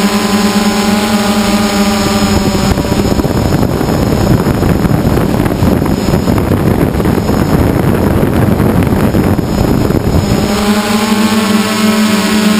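Small multirotor drone's electric motors and propellers, heard from the camera on board. A steady, pitched hum changes about two seconds in to a rough, noisy rush. The hum returns for the last two seconds.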